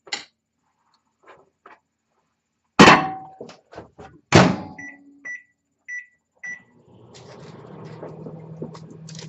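Microwave oven door shut with a thud, a second knock, then four short beeps from the control panel, and the microwave starts running with a steady low hum about seven seconds in, heating the chocolate and condensed-milk mixture for another half minute.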